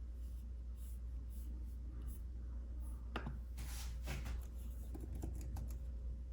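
Fingertips sliding across the iPad Magic Keyboard's trackpad, with a few light clicks between about three and six seconds in.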